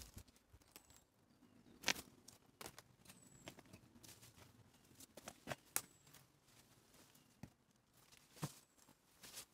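Quiet footsteps on a woodland path: irregular soft crunches and snaps of dry leaves, twigs and grit underfoot.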